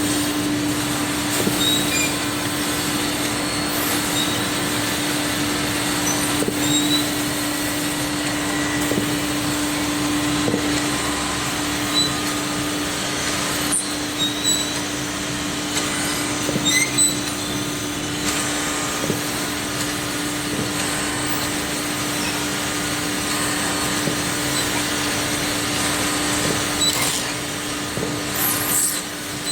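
Automatic wooden pants-hanger drilling and sanding machine running, with a steady motor hum under a constant mechanical whir. Short high clicks and a few brief hisses come at irregular moments.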